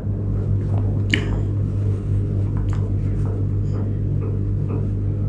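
A steady low hum with evenly spaced overtones, joined by a few faint ticks and one sharper tick about a second in.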